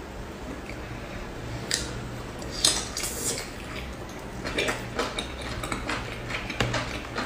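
Close-up eating sounds of someone biting into and chewing a boiled dumpling: a run of short, sharp mouth clicks starting about two seconds in, over a low steady hum.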